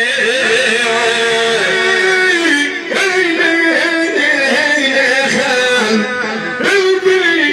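A man singing a Tunisian salhi folk song into a microphone, his voice wavering and bending through a long melodic line. Two sharp clicks cut in, about three seconds in and again near the end.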